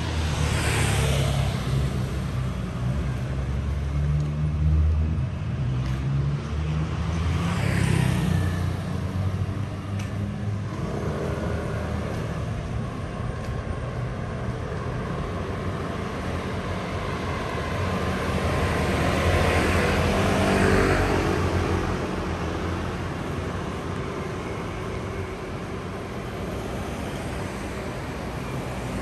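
Street traffic: motor vehicles passing close by, one about a second in, another around eight seconds in and a longer, louder pass around twenty seconds in, over steady engine noise.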